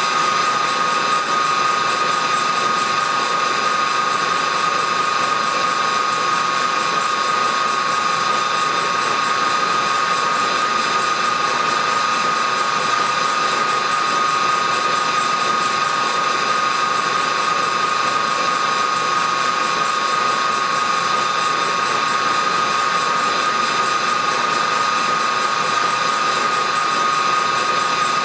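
Old Krumrein & Katz wheel bandsaw, about 110 years old and running on oil-filled plain bearings, spinning at full speed without cutting. It makes a steady, unchanging high whine.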